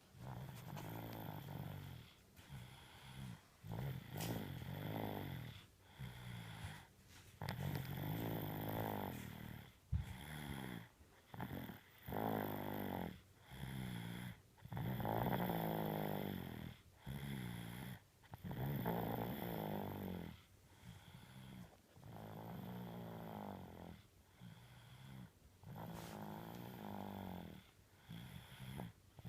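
Steady, unhurried snoring: a long series of buzzing snores, each about one to two seconds long with short pauses for breath in between. A sharp click sounds once, about ten seconds in.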